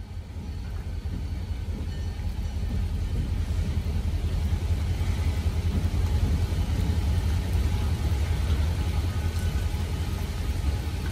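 Loaded gravel train rolling past, its hopper cars giving a low, steady rumble that builds over the first few seconds and then holds.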